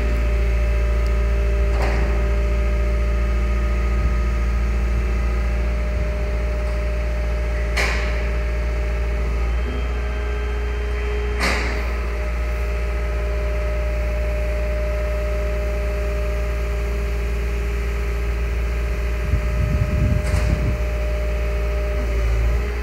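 Liebherr A 309 Litronic wheeled excavator's diesel engine running steadily with a steady hydraulic whine as the boom and bucket are worked. A few sharp clanks are heard, about 2, 8 and 11 seconds in, with a short rumble near the end.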